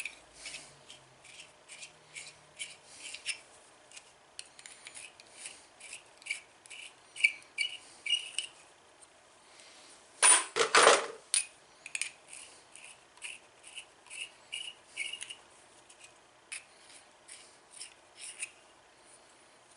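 Lyman case prep multi-tool worked by hand against brass cartridge cases: a run of short scraping strokes, about two a second, with a louder metallic clatter about halfway through.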